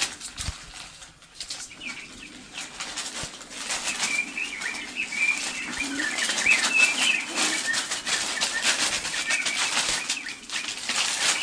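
Bird sound effect: wings flapping rapidly with chirping bird calls, growing louder a few seconds in.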